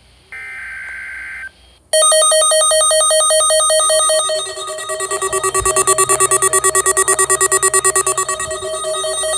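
NOAA Weather Radio emergency alert tones sounding ahead of a child abduction emergency alert: a short steady tone, then a loud warbling electronic signal that about halfway through turns into a fast pulsing beep.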